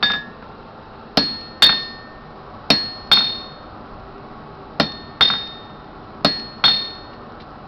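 Hammer striking a cold chisel held on a hot steel leaf blank on the anvil, cutting the leaf's V-pattern veins. Nine sharp strikes, most in pairs about half a second apart, each with a short metallic ring.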